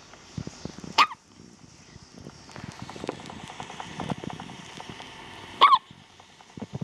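Newborn baby's hiccups: two short, high, squeaky hics, one about a second in and one near the end, with faint scattered noises between.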